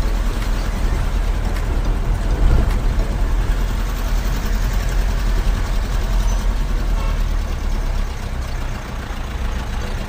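Car driving on a paved road, heard from inside the cabin: steady engine and tyre noise, easing a little near the end as the car slows.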